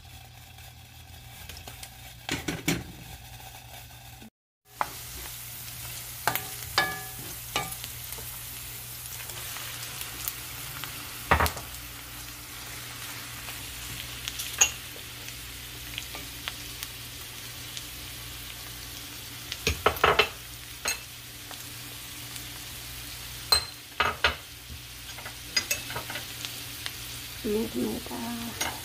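Chopped onions and tomato frying in a pan, with a steady sizzle and the sharp clicks of a spoon against the pan as it is stirred. The sound cuts out briefly about four seconds in.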